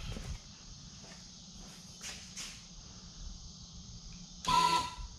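Faint handling noises, then about four and a half seconds in a short, loud metallic scrape with a ringing squeak as the transom saver is worked into place against the outboard motor's bracket.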